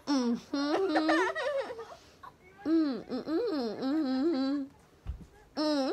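A high-pitched voice making long vocal phrases that swoop up and down in pitch, with short pauses between them, three times.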